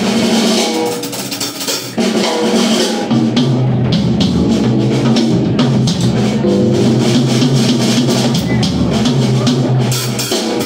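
A live rock trio of electric guitar, electric bass and drum kit playing an instrumental passage with no singing. The band gets louder about two seconds in, and after that the bass holds low notes under the guitar and cymbals.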